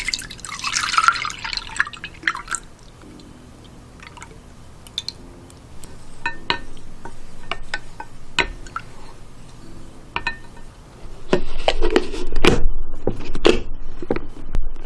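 Milk and drinking yogurt being poured into a glass container: a pour over the first two seconds, scattered clinks and drips, then a louder, longer pour with splashing from about eleven seconds in.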